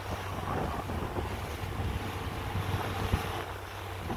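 Motorboat under way: a steady engine drone under wind rushing over the microphone, with the hull slapping against small waves and wakes several times, the hardest slap a little after three seconds in.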